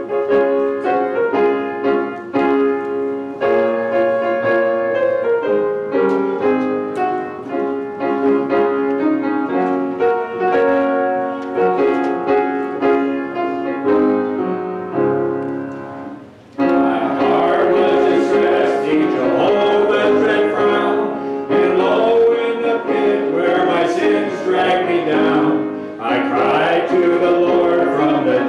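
Piano playing the introduction to a hymn. A little over halfway through, voices begin singing the hymn together with the piano.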